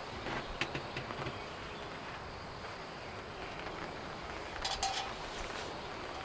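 Steady rain falling, an even hiss with scattered drip-like ticks, and a few short sharp sounds a little before the end.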